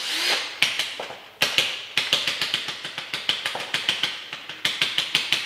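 Socket wrench working the nuts off a rear axle's third member: a brief swish at the start, then a steady run of irregular sharp metal clicks and taps, several a second.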